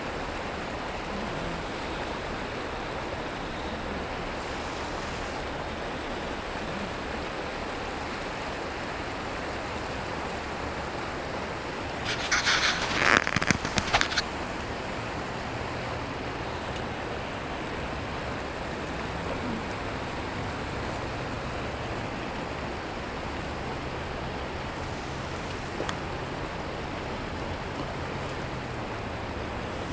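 Steady rush of a shallow mountain river flowing over rocks and a riffle. About halfway through comes a two-second burst of rapid clicking and rattling right at the microphone, as a hand passes in front of the camera.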